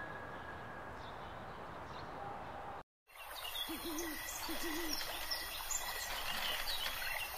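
Faint outdoor background with small birds chirping. A brief dropout comes about three seconds in, then two low, wavering hooting calls close together.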